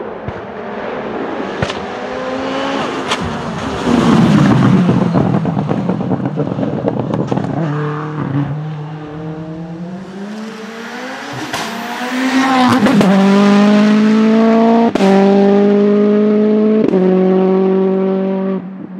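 Tuned turbocharged TFSI engine of a Volkswagen Golf Mk2 hillclimb race car accelerating hard uphill, its pitch climbing through the gears. There is a sharp crack of backfire at each upshift, twice near the end, and the sound then cuts off abruptly. Earlier on, the engine revs hard and fades as the car passes.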